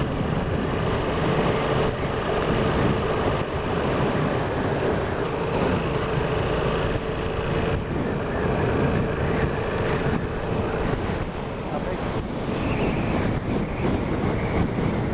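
Yamaha XSR700 parallel-twin engine running steadily at road speed, largely covered by heavy wind noise buffeting the microphone.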